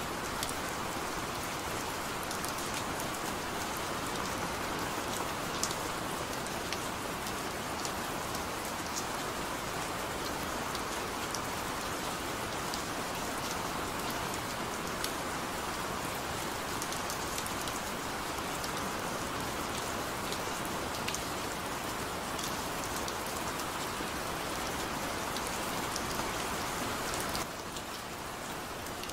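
Steady rain falling, an even hiss dotted with sharp ticks of single drops landing. A little before the end the hiss thins and gets slightly quieter.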